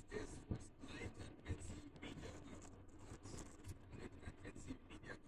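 Faint, irregular rustling and crackling of a plastic snack bag as a toddler handles it and eats from it.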